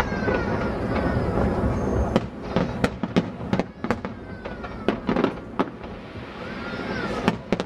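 Fireworks display: aerial shells bursting, a continuous rumble and crackle giving way about two seconds in to a rapid, irregular series of sharp bangs.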